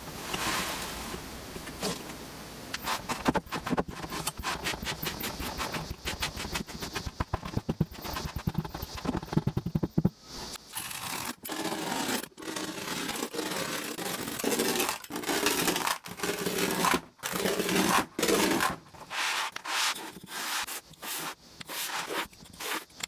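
Kinetic sand being worked, with crisp crunching and scraping made of many quick crackles. From about ten seconds in it comes in short strokes separated by brief silences.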